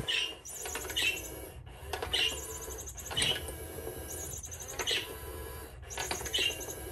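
Pop n' Play motorised cat toy running: a steady motor whir with short high squeaks about once a second as its mechanism turns.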